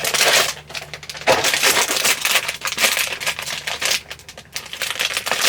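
Crinkling and rustling of a mystery-mini toy's blind-bag packaging being handled and opened, a dense run of irregular crackles.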